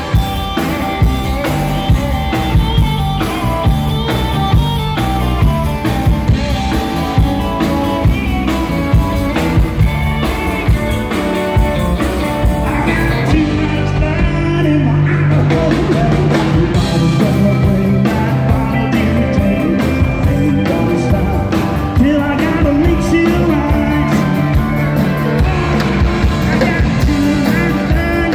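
Live country band playing a song: drum kit, guitars and bass with a sung vocal. The cymbals drop out briefly about halfway through.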